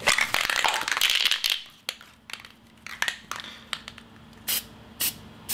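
Aerosol spray paint can spraying green paint in a hiss of about a second and a half, followed by a few light clicks and three short puffs of spray about half a second apart near the end.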